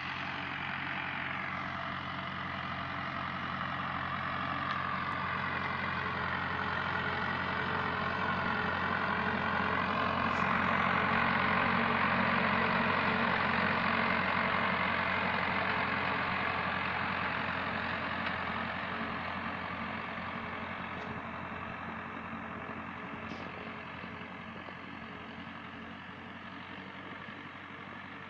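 Hindustan tractor's diesel engine running under load as it drags a land leveler, getting louder as it passes about halfway through and then fading steadily as it pulls away.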